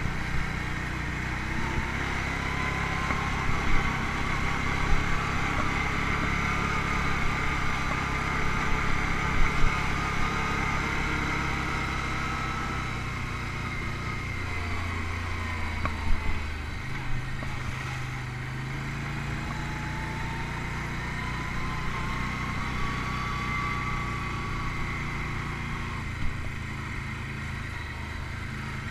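Can-Am ATV engine running on a dirt trail, its pitch rising and falling as the throttle opens and eases off, with a few sharp thumps from the ride over bumps.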